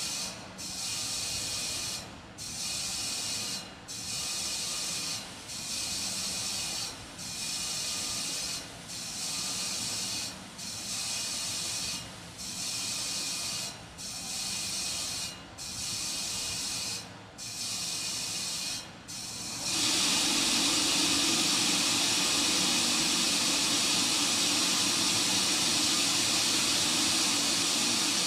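Gas venting from the Terran 1 rocket and its launch pad: a hiss that cuts in and out about every second and a half to two seconds. About twenty seconds in it changes to a steady, louder hiss.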